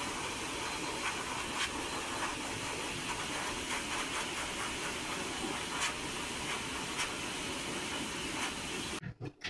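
A steady, even rushing hiss with a few faint clicks, cutting off abruptly about nine seconds in.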